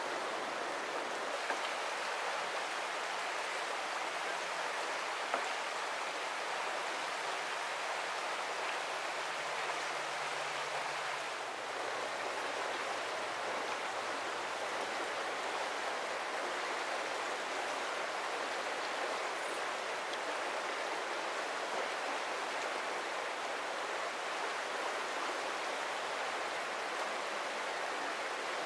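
Shallow river running over rocks in a riffle: a steady, even rush of flowing water.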